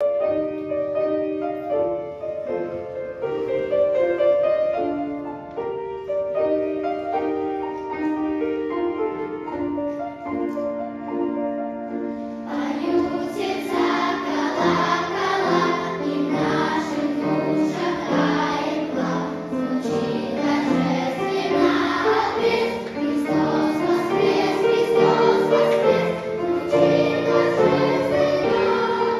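Choir singing a Christian song. A sparse melody of held notes opens it, and about twelve seconds in the sound suddenly fills out as the full ensemble comes in.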